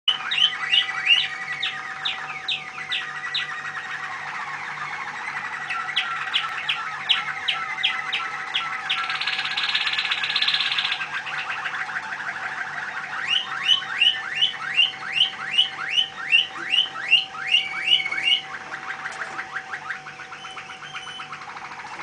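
Caged songbird singing a long, varied song: runs of sharp downward-swept notes, about two or three a second, alternating with trills and a buzzy stretch, the song thinning near the end. A steady faint tone runs underneath.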